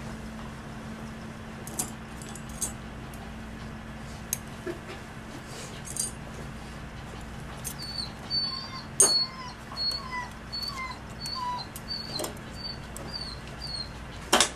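A dog whining in a run of short, high whimpers, about two a second, starting about eight seconds in. Sharp clicks are scattered through it, the loudest about nine seconds in and just before the end.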